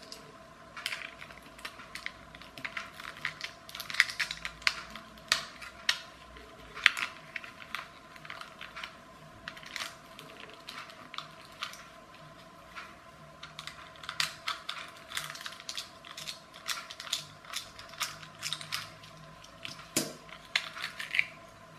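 Small clear-plastic parts of a clockwork toy car's mechanism being pried apart and handled with a small screwdriver: irregular plastic clicks, taps and scrapes, with sharper snaps about four and seven seconds in.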